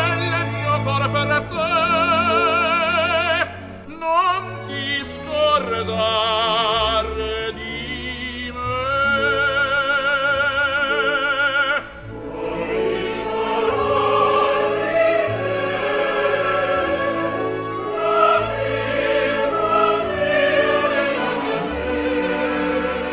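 Operatic song recording with orchestra: a vibrato melody line over the orchestra, giving way about halfway to a fuller orchestral passage.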